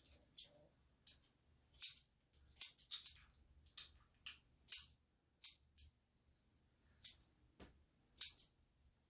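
Grooming scissors snipping through a Shih-Tzu's coat: about a dozen short, crisp metallic snips at an irregular pace.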